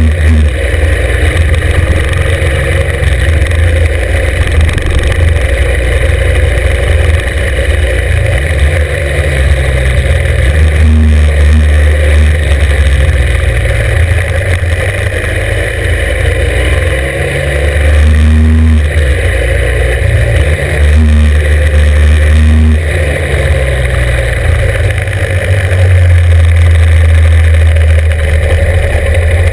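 Norton 750 Commando's air-cooled parallel-twin engine running hard under load, its pitch rising and falling several times as the bike is shifted and eased for bends, over a loud, steady rush of noise.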